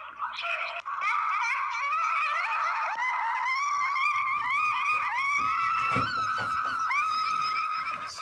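A continuous string of high-pitched squeaky vocal sounds, each one rising and then holding briefly before the next.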